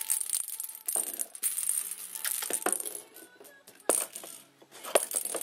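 Ferrets scrabbling and playing around a wire cage and a cardboard box on carpet: a run of small knocks, rustles and light metallic clinks at irregular intervals.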